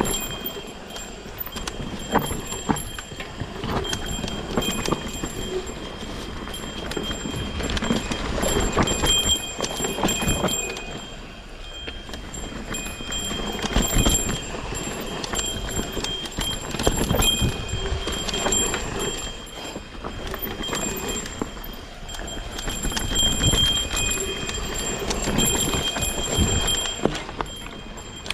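Mountain bike clattering and knocking down a rough singletrack, with the frame, chain and tyres rattling over roots and rocks in irregular bursts. A faint high tone comes and goes above the clatter.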